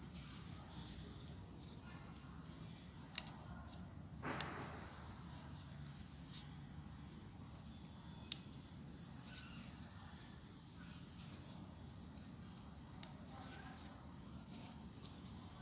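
Folded paper units of a 3D origami model being handled and pushed into place: faint crinkling with scattered small sharp clicks, the sharpest about three and eight seconds in, and a short paper rustle about four seconds in.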